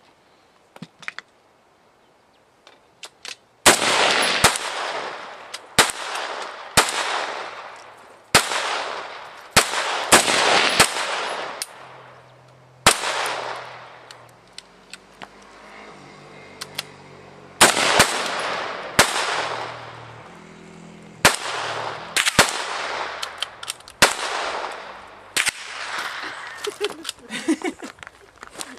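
Rifle fired repeatedly, a long string of single shots at uneven intervals of about half a second to two seconds, each echoing and dying away. The shooting starts about three and a half seconds in and pauses for a few seconds near the middle.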